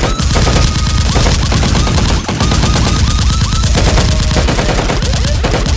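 Rapid automatic gunfire in a continuous volley of closely packed shots, with short rising whizzes among them, a gunfight sound effect laid over Nerf blaster shooting.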